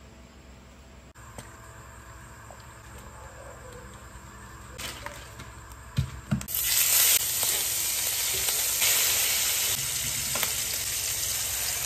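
Pieces of meat going into hot oil in a frying pan: a couple of knocks about halfway in, then loud, steady sizzling.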